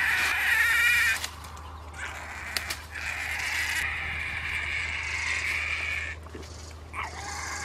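A pig squealing in long, high-pitched screams: one breaks off about a second in, a long one fills the middle, and another starts near the end with a falling pitch.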